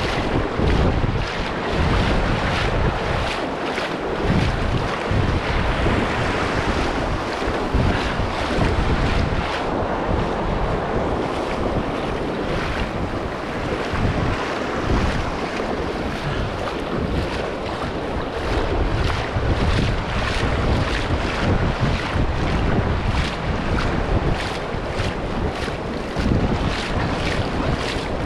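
Wind buffeting the microphone with heavy low gusts, over the steady wash of breaking surf in the shallows.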